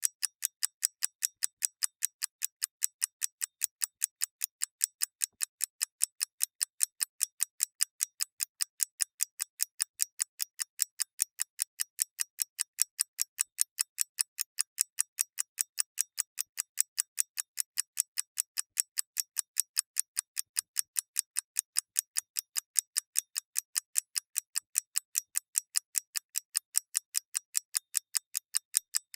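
Mechanical clock ticking steadily and evenly, about four crisp, thin ticks a second with no low thud.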